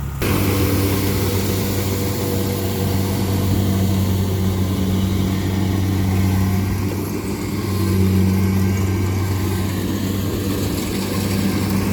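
Kubota DC-70 combine harvester's diesel engine running steadily with its harvesting mechanism working, a strong even hum under a broad mechanical clatter, as it cuts rice.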